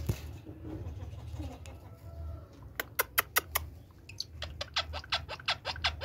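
A series of short, sharp clicks: five about three seconds in, then a faster run of about a dozen near the end. A single knock comes at the start, over a low rumble.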